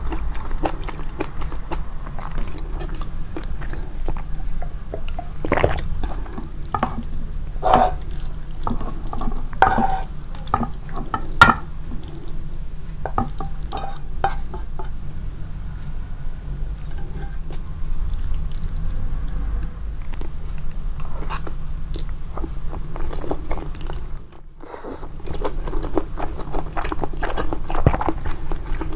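Close-miked, amplified chewing of japchae glass noodles: wet mouth smacks and sticky clicks at an irregular pace. The sound drops out briefly about three-quarters of the way through.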